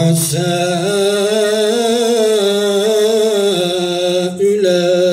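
A man reciting the Quran in a melodic, chanted style, drawing out a long ornamented note with a wavering, trilling pitch. He breaks briefly about four seconds in and goes on.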